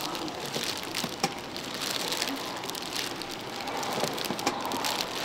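Gloved hands squishing and tossing a big stainless steel bowl of tuna flakes: a steady, moist crackling and rustling of the fish and the plastic gloves, with a few sharper ticks.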